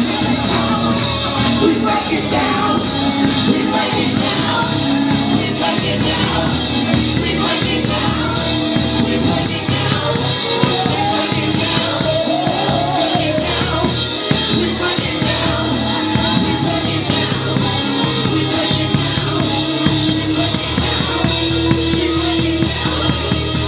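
Band music with a drum kit keeping a steady beat, with singing heard at times.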